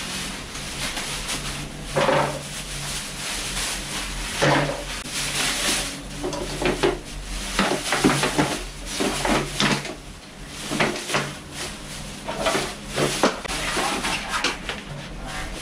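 Irregular clinks, knocks and clatter of small hard objects being handled, with a plastic bag rustling.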